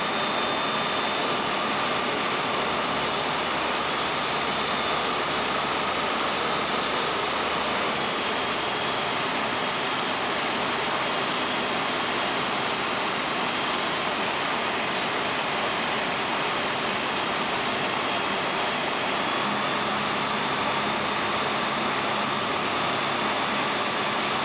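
Skyranger microlight's Rotax 912 flat-four engine and propeller running steadily, heard from the cockpit under a heavy rush of wind, with a faint whine that sags slightly midway and comes back.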